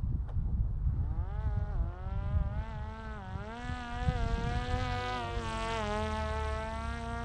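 Parrot Disco fixed-wing drone's electric motor and propeller, a buzzing whine that fades in about a second in and bends up and down in pitch as the drone flies past, over a low rumble of wind on the microphone.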